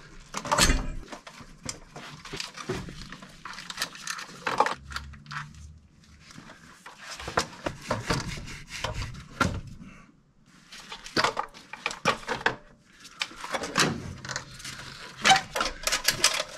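Irregular clicks, knocks and rattles of metal and plastic parts being handled as an air cleaner housing is unclipped and lifted off a carburetor, with quieter pauses between bouts of handling.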